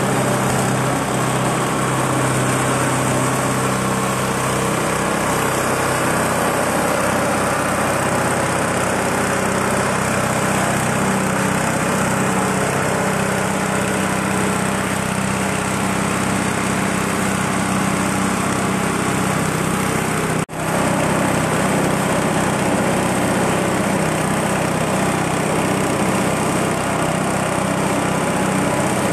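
Small engine driving a grinding mill as it grinds a rice husk and corn cob mix into bran meal: a steady engine drone with the mill's grinding noise over it. There is a brief break about twenty seconds in.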